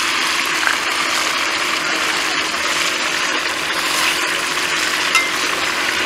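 Woodcocks frying in hot oil in a kazan over a wood fire, sizzling steadily as they brown, with one brief click about five seconds in.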